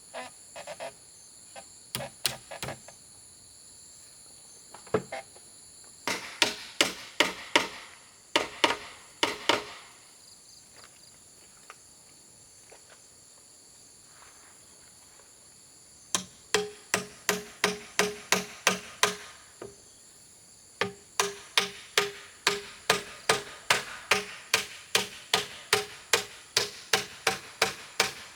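Hand tool repeatedly striking bamboo, about three sharp blows a second in several runs, some blows ringing briefly. Crickets and other insects drone steadily throughout.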